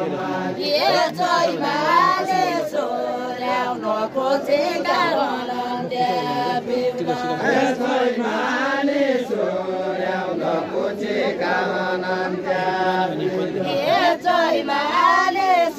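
A group of voices singing a Deuda folk song of far-western Nepal together, the melody sliding up and down in long drawn-out phrases.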